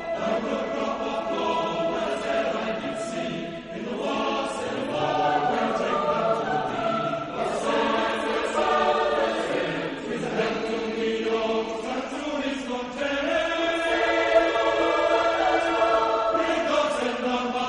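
A choir singing a wassail carol.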